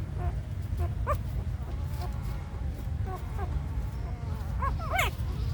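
Newborn puppies squeaking and whimpering in short, high-pitched cries, one about a second in and a cluster near the end, over a steady low rumble.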